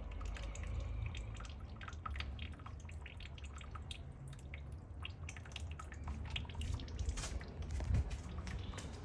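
Water dripping and splashing in many quick, irregular drops, over a low steady hum.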